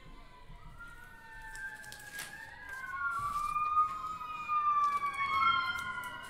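Emergency vehicle siren wailing, its pitch rising and falling slowly, growing louder over the first four seconds or so. A couple of light clicks sound around the middle.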